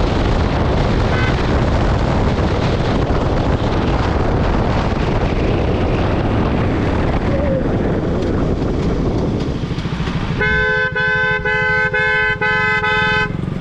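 Steady wind and traffic noise, then a vehicle horn sounds about ten seconds in, a string of about five short honks on one steady pitch.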